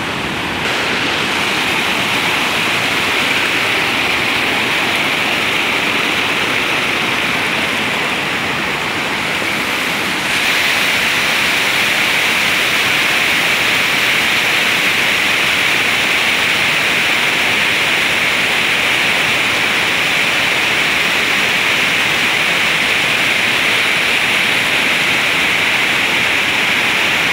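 Waterfall cascading down rocky ledges: a loud, steady rush of water. It steps up in level about a second in and again about ten seconds in.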